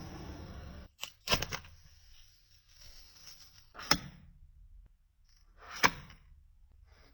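Handling noise from unboxing: a quick cluster of sharp clicks and taps about a second in, then single sharp clicks near four and six seconds.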